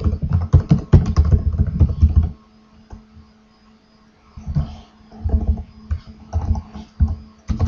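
Typing on a computer keyboard: fast runs of key clicks, a pause of about two seconds, then more short runs of typing.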